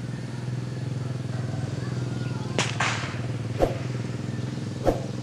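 Diesel engine of a Sumitomo SH210 long-reach excavator running steadily with a low, even hum. A short hiss comes about halfway through, followed by a few sharp knocks.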